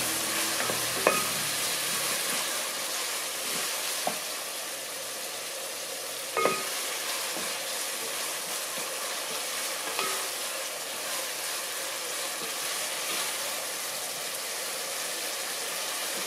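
Ground beef, garlic and onion sizzling steadily in sesame oil in a pot while a wooden spatula stirs and scrapes them, with a few sharp clicks of the spatula against the pot.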